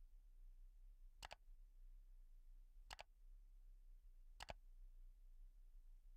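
Three mouse-click sound effects from a like-and-subscribe button animation, about a second and a half apart, over a faint low mains hum.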